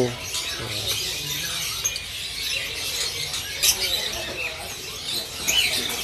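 Many caged songbirds chirping and calling at once, scattered short high notes, with a couple of short arched calls near the end and faint voices in the background.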